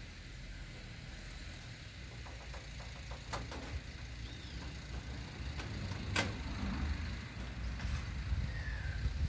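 Wind buffeting the microphone in a low rumble that slowly builds, with a few sharp clicks and a couple of faint bird chirps.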